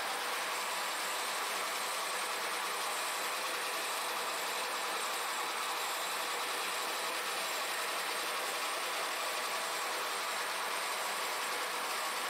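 Milling machine running steadily, its face cutter skimming the deck of an aluminium Volkswagen-group 16-valve cylinder head to resurface it: an even, unchanging noise with a faint steady hum.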